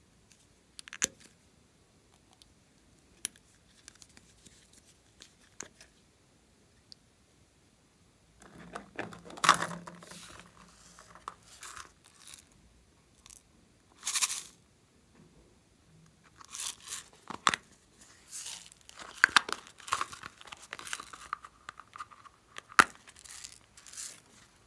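Plastic containers and slime add-ins handled over a glass tray: scattered light clicks and taps at first, then a run of short, louder rustling and scraping bursts from about a third of the way in. Near the end, a hard plastic shell-shaped container is pried open.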